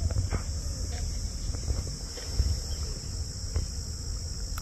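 Steady high-pitched buzz of an insect chorus, over a low uneven rumble, with a few faint ticks as a hooked tilapia is handled.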